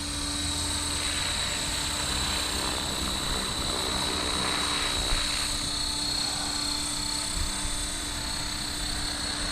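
Blade Fusion 360 electric RC helicopter in flight, flying smoothly: a steady rotor and motor sound with a high, even whine.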